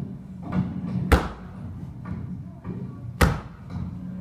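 A hand slapping an aikido mat twice, two sharp slaps about two seconds apart, as in the breakfall slap of aikido practice.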